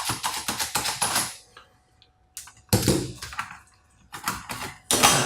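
Rapid clicking and clattering of hard laptop parts being handled during disassembly, in several short bursts.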